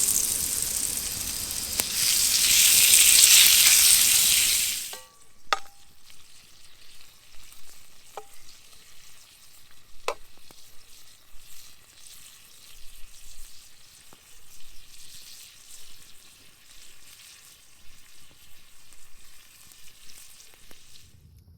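Food sizzling loudly as it fries over a campfire. About five seconds in it drops suddenly to a faint crackling, with a few sharp pops.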